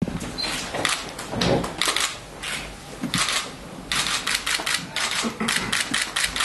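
Camera shutters clicking in rapid bursts, several cameras firing at once.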